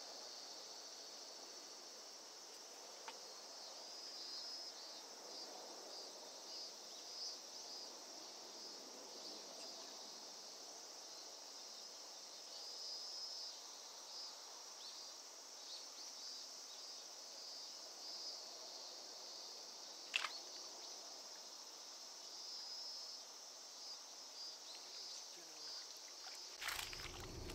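Faint chorus of insects chirping in a steady high-pitched pulsing drone, with a sharp click about two-thirds of the way through and a brief knock and rustle near the end.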